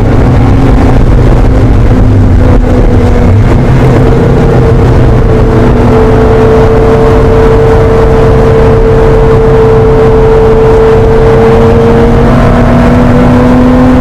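1980 Porsche 911 SC's air-cooled 3.0-litre flat-six running hard at high revs, heard loud from inside the cockpit. The revs hold almost steady on a long pull, easing slightly at first and climbing a little near the end.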